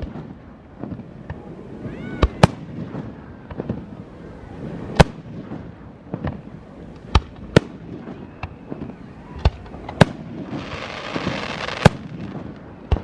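Fireworks going off: a series of sharp, separate bangs a second or two apart, with about a second of dense crackling starting about ten and a half seconds in.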